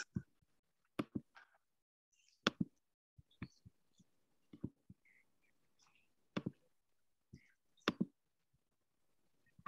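Faint, scattered clicks and light taps from a computer mouse and keyboard, about six sharp ones irregularly spaced with a few smaller ticks between, as screen sharing is being set up.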